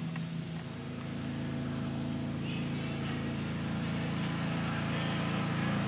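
A steady low mechanical hum made of several held tones.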